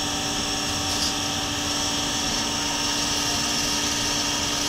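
Duet horizontal bandsaw running in automatic mode: a steady, even machine hum with several held tones.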